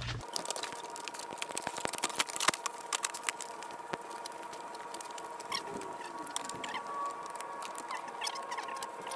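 Plastic body panels of a Honda Ruckus scooter being handled and fitted onto its frame: a string of irregular light clicks, knocks and rattles of plastic against plastic and metal.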